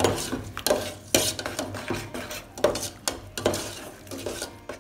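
A spoon stirring and scraping in a metal pot, with irregular clinks and scrapes about two a second, as spice paste with lemongrass and leaves is sautéed in oil until cooked.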